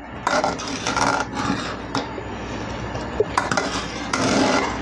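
Metal spoon scraping and knocking against a cooking pot in a series of irregular strokes, over a low steady hum.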